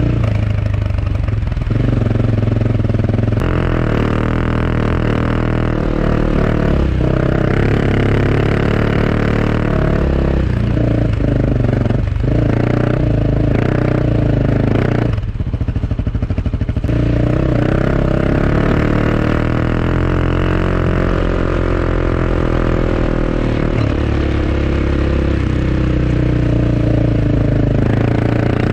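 Off-road motorcycle engine running under changing throttle, its pitch rising and falling as it rides, easing off briefly about halfway through.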